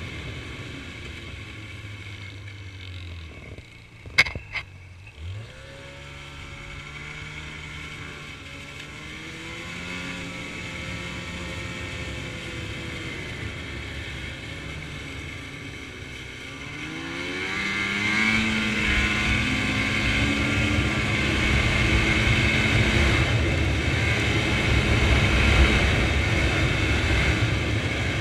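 Snowmobile engine running at a slow pace, with two sharp clicks about four seconds in, then picking up speed with its pitch gliding upward. From about 17 seconds in it revs higher and runs louder at speed.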